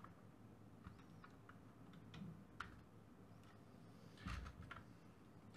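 Mostly near silence, with faint clicks and taps of small plastic projector parts being handled: a sharp single click about two and a half seconds in, and a short cluster of clicks a little past four seconds.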